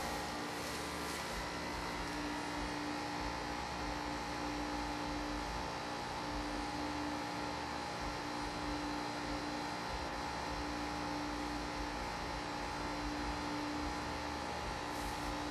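A steady hum with a few held tones over a hiss, unchanging throughout.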